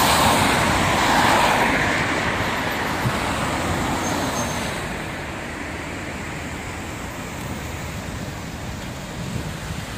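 City street traffic: a steady wash of road noise from passing cars, louder over the first two seconds and then easing to a lower, even level.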